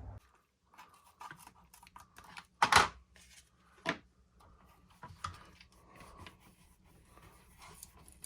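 Small handling noises of bench work on an RC truck's electronics: light clicks and taps, with a short loud scrape or rip almost three seconds in and a briefer one about a second later.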